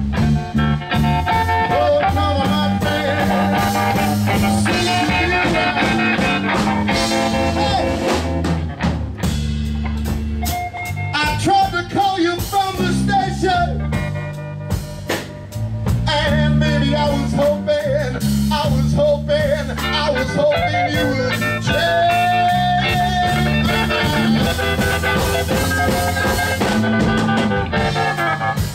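Live electric blues band playing: drum kit, bass and electric guitar keep a steady groove under a bending lead melody line.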